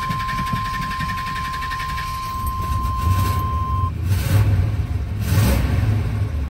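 Chevy Silverado truck engine being started with a newly fitted starter: an uneven low rumble that grows louder about three seconds in. A steady high warning tone sounds and stops about four seconds in.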